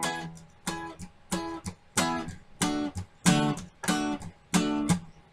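Acoustic guitar strumming short, quickly damped chords at an even pace, about three strokes every two seconds, in a reggae groove.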